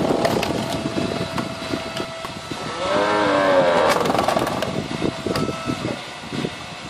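Yardworks electric log splitter's motor and hydraulic pump running with a steady whine, with sharp cracks and knocks from the wood and the ram, and a short squeal about three seconds in. The whine drops away near the end.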